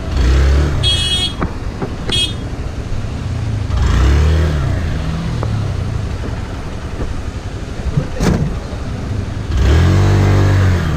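Motorcycle engine revved in short bursts, rising and falling three times, as the bike is ridden slowly over a muddy, rocky track. Two short high-pitched tones sound about one and two seconds in, and a sharp knock comes about eight seconds in.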